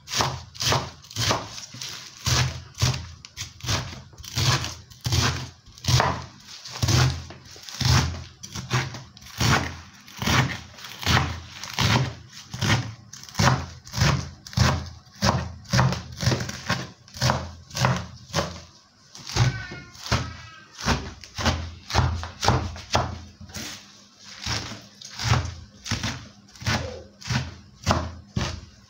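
Kitchen knife chopping dandelion leaves on a wooden cutting board: steady knife thuds on the board, about two a second, with a short break about two-thirds of the way through.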